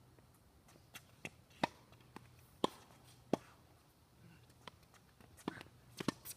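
Tennis balls knocking off racquet strings and bouncing on a hard court: a scatter of short, sharp pops, several close together about a second and a half in and another cluster near the end.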